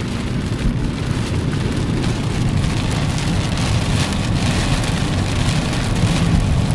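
Heavy rain pelting a moving car, heard from inside the cabin, over the steady low rumble of the car on the road.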